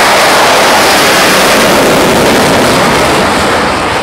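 Jet-powered drag truck's jet engine at full power as the truck runs down the drag strip: a loud, steady rushing noise that eases slightly near the end.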